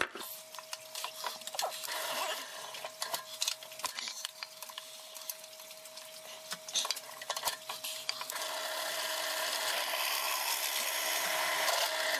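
Drill press table being cranked down: a run of quick metallic clicks and rattles over a faint steady hum. In the last four seconds a louder, denser rasping noise builds up.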